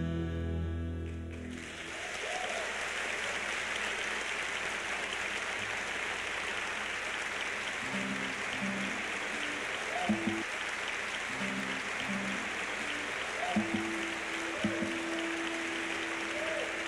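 A held final chord on violin and acoustic guitar ends about two seconds in, and audience applause breaks out and carries on steadily, with a few short low notes sounding under it in the second half.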